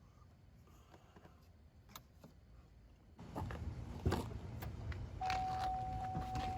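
Faint room tone, then from about halfway a run of clicks and clatter from handling, and about two seconds before the end a steady high electronic beep that keeps sounding.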